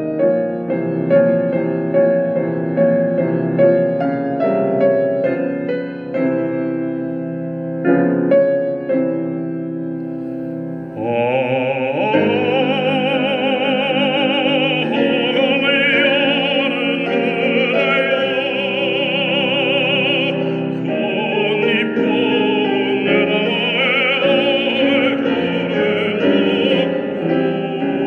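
Piano playing alone for about the first eleven seconds, then a baritone comes in singing a Korean art song (gagok) in an operatic style with wide vibrato, with piano accompaniment.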